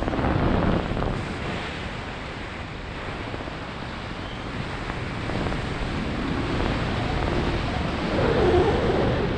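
Wind rushing over the camera microphone of a skydiver flying under an open parachute canopy; loud in the first second, easing off, then swelling again near the end.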